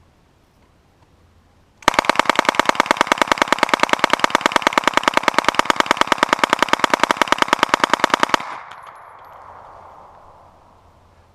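S.W.D. M11/9 submachine gun with a Lage Max-31 carbine-length upper and birdcage flash hider firing one long full-auto burst from a 72-round drum, about ten shots a second for some six and a half seconds, starting about two seconds in; the echo dies away after it stops.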